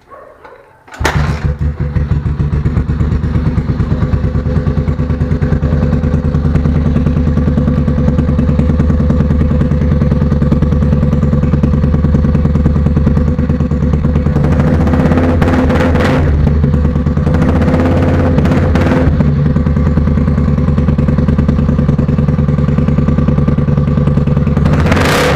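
Motorcycle with a Roncar Boca 8 aluminium Racing aftermarket exhaust starting up about a second in, then idling steadily and loudly through that exhaust.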